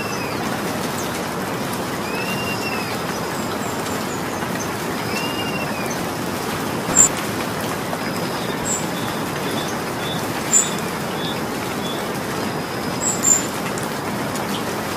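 Steady rain falling, with a bird in the background: a short arched whistle repeated every few seconds in the first half, then a few sharp high chirps, the loudest near the middle and toward the end.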